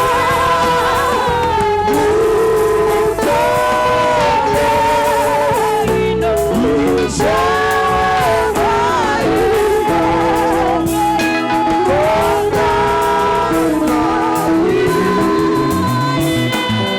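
Music: a gospel song with voices singing long, held notes over guitar accompaniment.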